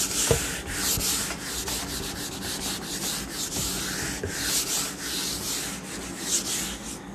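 Whiteboard eraser rubbing across a whiteboard in quick repeated wiping strokes, a scratchy hiss that stops shortly before the end.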